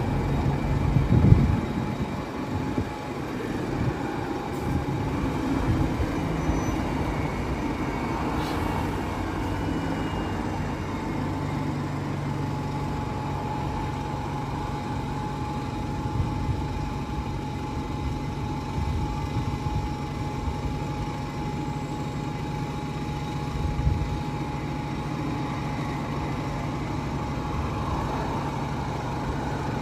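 A stationary London bus's engine idling with a steady low hum and a faint steady whine. There is a brief louder jolt about a second in.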